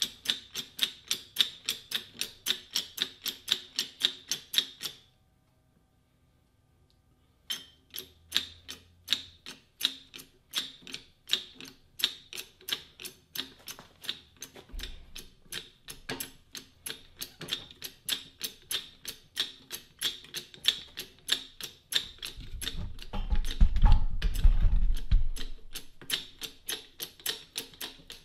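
Hydraulic jack on a tube bender being pumped by hand, giving rapid, even clicks at about three a second as the tube is drawn around the bending die. The sound cuts out for about two seconds about five seconds in, and a low rumble rises near the end.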